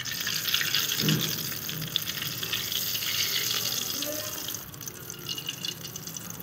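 Samosas sizzling and crackling as they deep-fry in hot oil in an aluminium pot. The sizzle thins out about four and a half seconds in.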